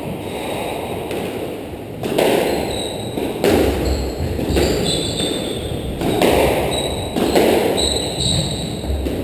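Squash rally: the ball cracks off rackets and walls about six times, with short high squeaks of court shoes on the wooden floor.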